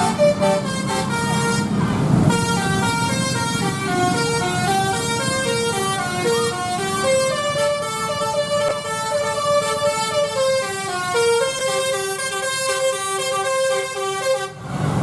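Bus Basuri telolet musical horn playing a tune of steady, stepped notes over the rumble of the bus's engine; the horn cuts off abruptly near the end.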